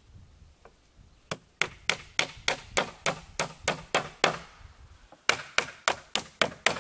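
Hammer striking the wood of a cedar lawn chair: a run of about a dozen quick, even blows at roughly three a second, a pause of about a second, then six more.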